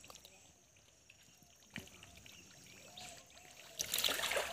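Bare hands plunging and groping through wet mud and shallow water, a wet splashing squelch that is loudest near the end. Before that it is mostly quiet, with one sharp click about two seconds in.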